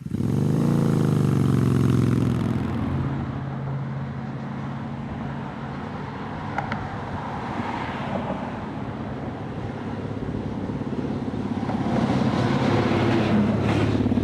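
A motor vehicle engine comes on suddenly and revs up, then runs steadily, revving again near the end.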